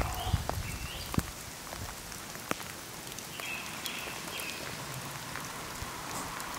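Rain falling on a wet asphalt road: a steady patter with sharp ticks of single drops, and a low rumble in the first second.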